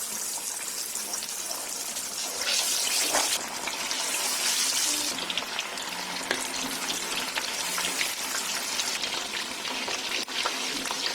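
Marinated chicken pieces sizzling in hot oil in a kadai as they go in to deep-fry, with a steady hiss and scattered pops. The sizzle surges louder twice, a couple of seconds in and again around four to five seconds in.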